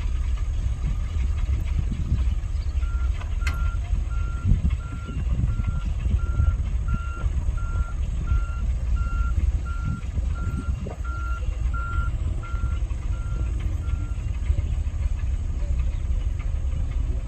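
Reversing alarm on a heavy earthmoving machine, beeping evenly about one and a half times a second. It starts about three seconds in and stops a few seconds before the end, over the steady low rumble of a heavy engine working.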